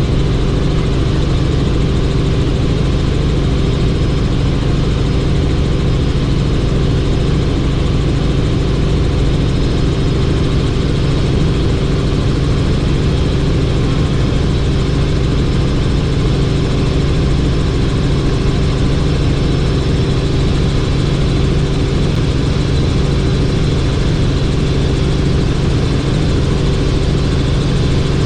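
Helicopter in steady cruising flight: a loud, unchanging drone of engine and rotors, with a constant low hum.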